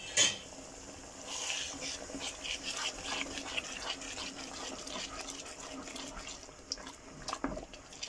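Pumpkin risotto simmering and bubbling in a pan with freshly added broth, stirred through with a wooden spoon; a sharp knock just after the start.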